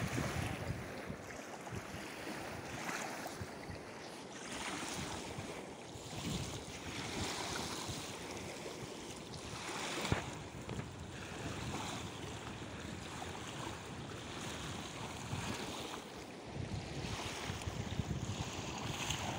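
River water rushing and lapping against a sandy bank, swelling and easing every few seconds, with wind buffeting the microphone.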